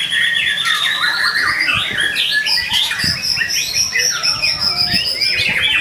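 White-rumped shama (murai batu) singing non-stop: a rapid, varied run of chirps, trills and whistles, with a long high whistle held from about three and a half seconds in until near the end.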